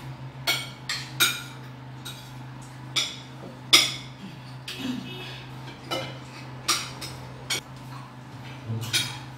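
Cutlery clinking and scraping against plates and bowls as several people eat, a dozen or so short, sharp clicks at irregular intervals, over a low steady hum.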